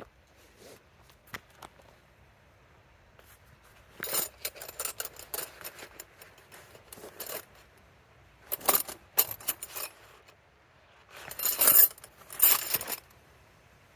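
Small hard objects clinking and rattling, like keys or metal gear being handled, in three short bursts of rapid clicks.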